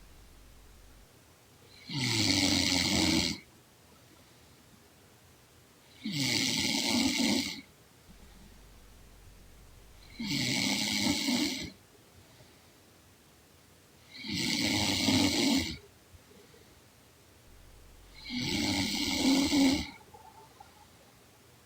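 A young woman snoring in her sleep: five snores, each about a second and a half long, coming regularly about every four seconds.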